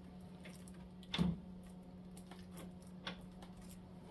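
Faint clicks and one short knock about a second in, from hand tools and fork parts being handled, over a steady low hum.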